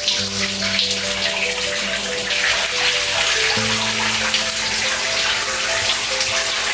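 Water running steadily from a tap into a bath, filling it. Background music with soft sustained notes plays over it.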